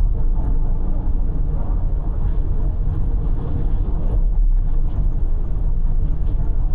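Steady low rumble of car road and engine noise heard from inside the cabin at expressway speed.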